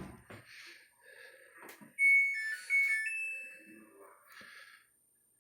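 Samsung dryer control panel playing a short electronic chime: a few clear beep notes stepping up and down in pitch, typical of the machine being switched on. Before it comes a sharp click with some faint handling noise.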